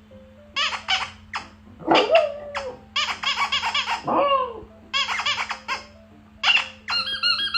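A baby laughing in repeated bursts of quick giggles, with a couple of squealing rises and falls in pitch.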